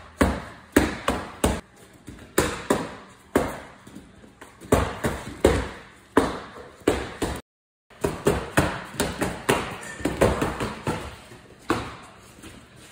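Gloved punches smacking into thick hand-held strike pads: a fast, irregular run of sharp hits, often two or three in quick succession.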